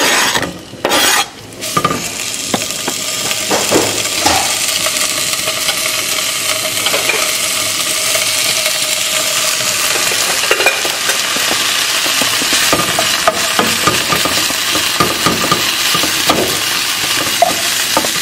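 Chopped bacon sizzling in a hot skillet, with a wooden spatula scraping and pushing the pieces around. The sizzle starts about two seconds in as the bacon goes into the pan, builds, then holds steady with small scrapes and clicks.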